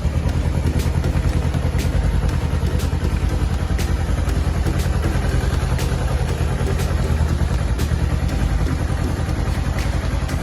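Kawasaki Ninja motorcycle engine idling steadily, with faint light clicks about once a second.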